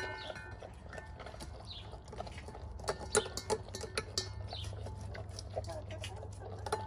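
Doberman eating a raw meal from a stainless steel bowl: irregular wet chewing and slurping, with sharp clicks of teeth and tongue against the metal bowl.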